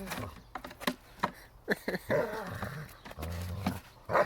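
German Shepherd dog growling as it bites and wrestles with a chair, with several sharp knocks in the first two seconds and low, rough growls after.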